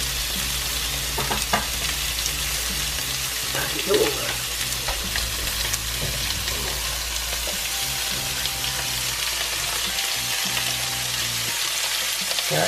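Lobster tails frying in melted butter in a pan, a steady sizzle with small pops and crackles.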